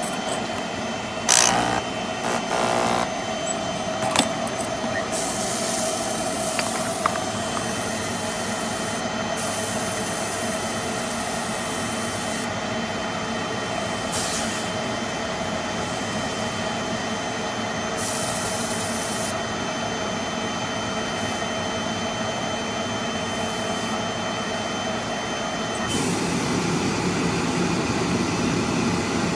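Steady hum of a running motor, with a held tone and a faint high whine through the middle. It grows louder and fuller near the end. A few short knocks and clicks come in the first several seconds, from tools being handled.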